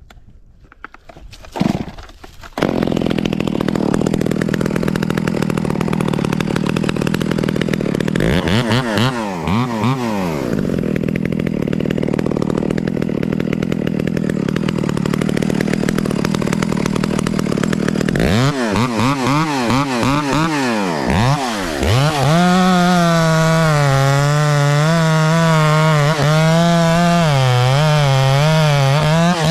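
Echo 670 two-stroke chainsaw, which starts about two and a half seconds in and runs at high revs. Its pitch drops and recovers twice, then it settles into a lower, wavering note under load in the cut.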